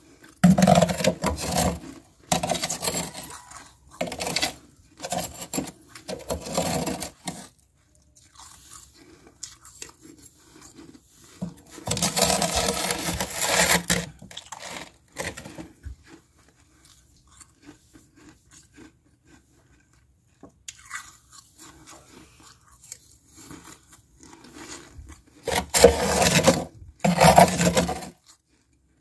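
Close-up crunching and chewing of thin, flaky freezer frost, in three stretches of crunch bursts with quieter pauses between, along with a metal spoon scraping frost off the freezer wall.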